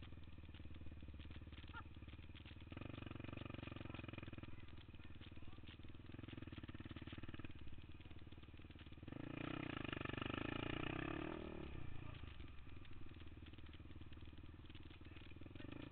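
Quad (ATV) engine running as it rides across grass, pulling harder for a couple of seconds about nine seconds in, then falling in pitch as the throttle eases off.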